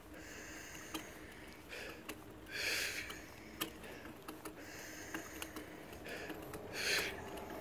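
A person breathing slowly and audibly, a long breath in and out about every four seconds, with a few light clicks between breaths.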